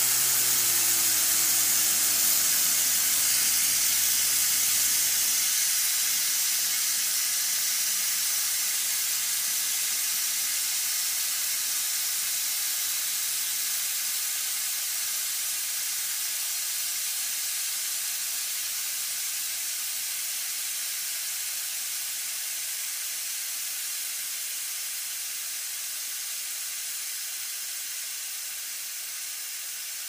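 Compressed air hissing from a tank into a large plastic balloon, a steady high hiss that slowly gets quieter. In the first few seconds a low tone falls in pitch beneath the hiss.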